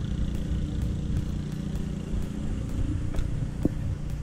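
Wind buffeting and tyre rumble from a mountain bike rolling along a paved path, with scattered light clicks and rattles.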